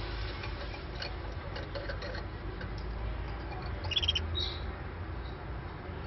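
Caged canary giving one short chirp about four seconds in, among faint scattered clicks over a steady low hum.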